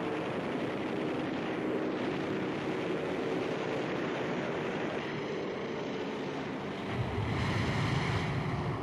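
Propeller fighter plane's engine droning steadily, swelling into a louder rush about seven seconds in.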